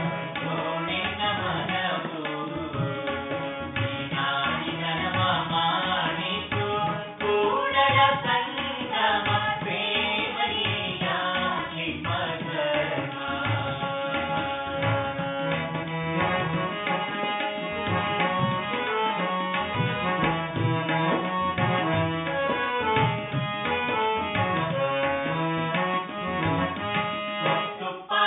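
Kannada vachana devotional song: two women and a man sing together to harmonium and tabla accompaniment. The tabla keeps a steady, busy rhythm under the voices and the held harmonium tones.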